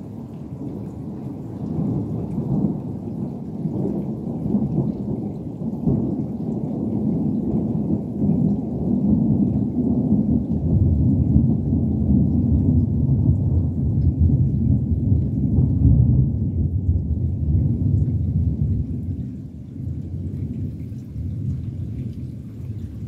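Distant thunder: one long rolling rumble that builds over the first couple of seconds, is loudest past the middle and dies away near the end.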